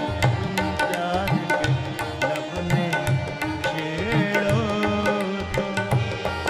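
Instrumental interlude of a ghazal: sarangi and harmonium playing a gliding melody over a steady tabla rhythm.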